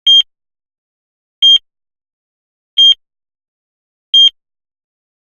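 Heart-monitor beep sound effect: short, high electronic beeps at a slow, even pulse, one about every second and a half, four in all.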